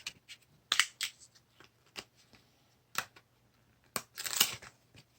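Trading cards being handled and flipped one by one: short sharp snaps and clicks of card stock, with a longer sliding rustle about four seconds in.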